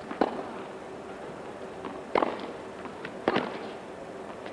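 Tennis ball hit back and forth in a rally: three sharp pops, the second about two seconds after the first and the third about a second later, each with a short ring after it.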